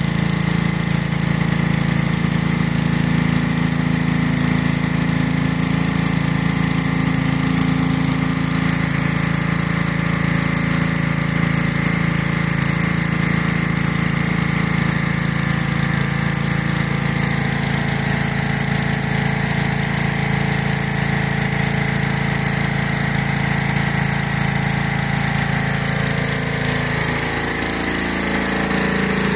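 Gas-engine pressure washer running steadily under load, with the hiss of high-pressure water from a rotary surface cleaner spinning over concrete. The engine note dips briefly near the end.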